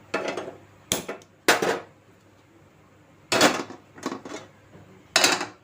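Kitchen utensils and dishware clattering: about seven separate knocks and short scrapes of metal, spread over the few seconds.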